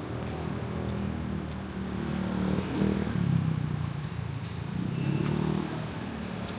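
Street traffic: engines of passing vehicles, rising in pitch and getting louder about halfway through and again briefly near the end.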